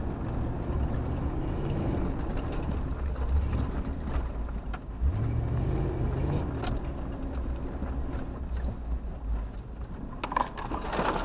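Off-road 4x4 driving slowly over a rough grassy track, heard from inside the cabin: a steady low engine drone that rises briefly about five seconds in, with a few knocks and rattles from the body over the bumps.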